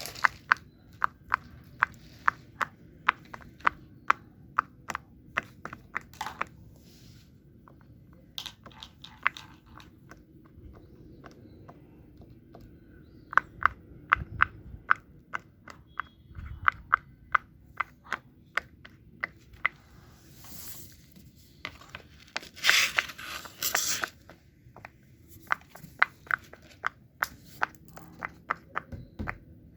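Fidget toys being clicked and handled: a long run of sharp clicks, roughly two or three a second with short pauses, and a brief scratchy rustle about three-quarters of the way through.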